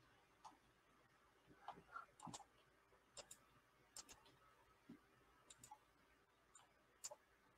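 Faint, irregular clicks of a computer mouse, in short clusters, over near silence.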